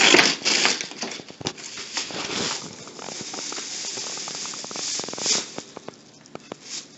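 Paper rustling and crinkling as a gift box is opened and the tissue paper inside is pulled about, loudest right at the start with another burst about five seconds in.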